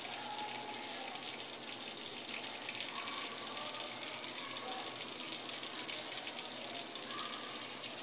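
Water running steadily from a sink faucet, an even hiss of the stream splashing into the basin.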